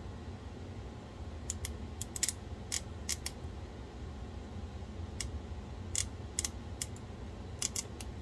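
Small metal snips cutting tiny paillons off a fringed strip of sheet solder, a sharp snip at each cut. About fifteen snips in irregular clusters, with a pause of about two seconds midway.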